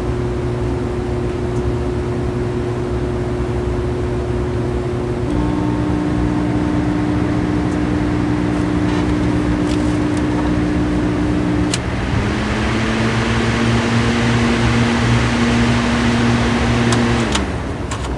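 Honeywell HW-690 window fan running with a steady motor hum. A little over five seconds in the hum shifts in pitch. From about twelve seconds the motor speeds up slightly with more air rush, then slows again near the end, with a few sharp clicks as the control buttons are pressed.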